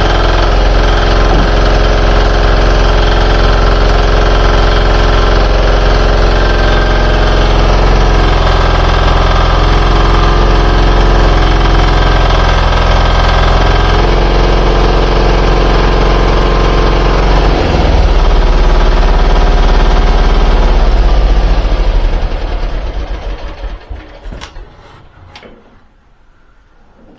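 Mini excavator's engine running steadily, its pitch and level changing a couple of times, then shut off about twenty-two seconds in and dying away.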